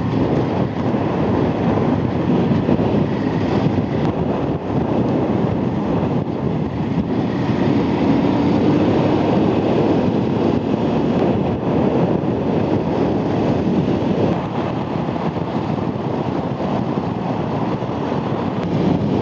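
Honda Transalp V-twin motorcycle at road speed: steady engine and road noise under heavy wind rush on the camera microphone.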